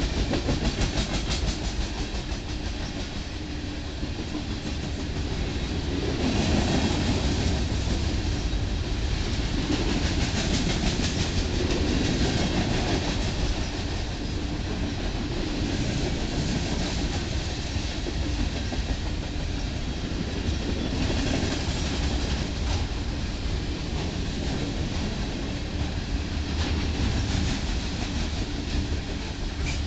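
Union Pacific coal train's hopper cars rolling past at speed close by: a steady rumble of steel wheels on rail with rapid clickety-clack, swelling and easing a little as the cars go by.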